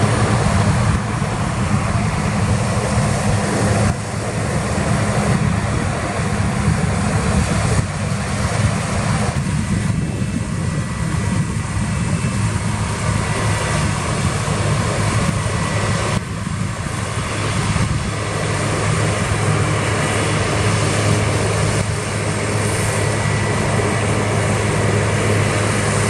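New Holland CX860 combine harvester threshing wheat: a steady drone of its engine and threshing machinery, with a strong low hum under a constant rushing noise.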